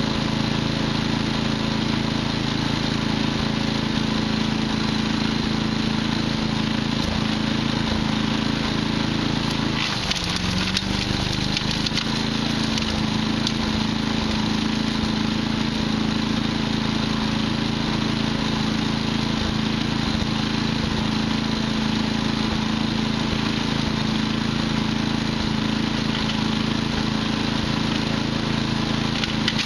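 Patriot wood chipper running steadily with a constant hum. About ten seconds in the engine dips in pitch under load and recovers, and wood cracks and splinters through the chipper from then on.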